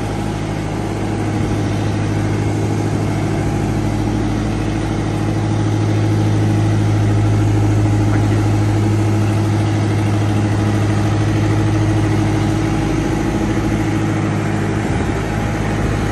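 Travel lift (mobile boat hoist) engine running steadily as the hoist drives slowly across the yard with a boat slung in its straps, a low even hum that grows a little louder in the middle.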